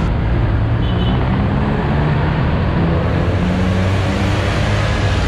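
Busy city road traffic: a steady mix of car, bus and jeepney engines running on a wide multi-lane avenue, with a low engine hum underneath.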